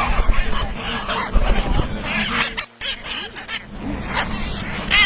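A colony of hill parrots (Alexandrine parakeets) screeching and chattering together, many short repeated calls overlapping, with a brief cut in the sound a little past halfway.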